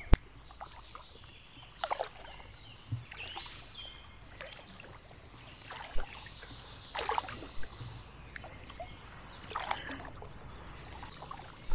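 Kayak paddle strokes: the blades dip into and lift out of the water at uneven intervals, with splashes and dripping over a steady low background of water and wind. A single sharp click just after the start is the loudest thing.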